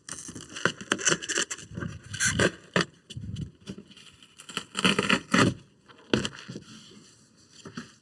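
Irregular scraping and rustling, in several bursts, as the old headliner board of a Chevy Silverado pickup is worked out of the cab past the trim.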